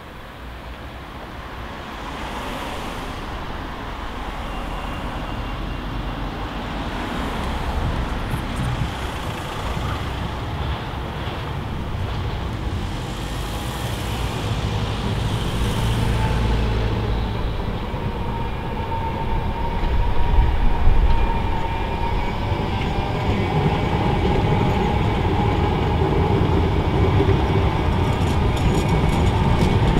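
Street traffic: a car passes about halfway through, then a tram approaches with a rising rumble and a steady whine, its wheels clattering on the rails as it passes near the end.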